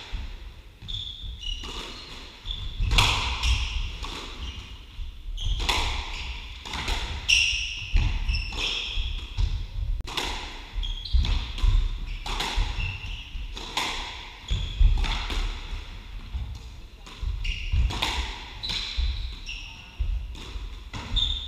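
Squash rally: the ball cracks off rackets and the court walls about once a second, with shoes squeaking on the wooden floor and footfalls thudding between shots.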